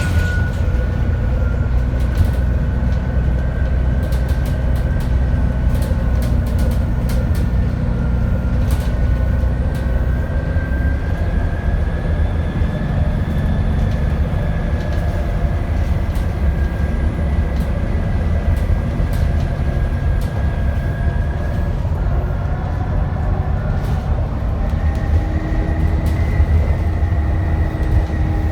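Dennis Trident 2 double-decker bus's diesel engine running with a high, thin turbo whistle over a steady low drone. The whistle's pitch wanders slowly and shifts down and then up again near the end, with light rattles throughout.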